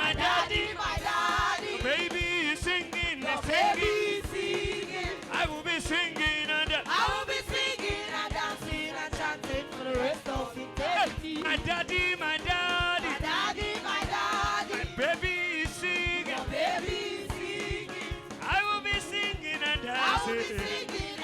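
Live church praise band playing upbeat music with a steady drum beat, with voices singing over it.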